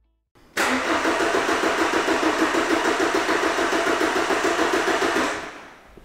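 2011 Ford Transit Connect's 1.8 TDCi four-cylinder diesel being cranked over on the starter motor with a steady rhythm for nearly five seconds without starting, then it stops. This is the crank no-start: the engine ECU registers no engine speed even though the crank sensor signal is good, which the mechanic takes for a faulty PCM.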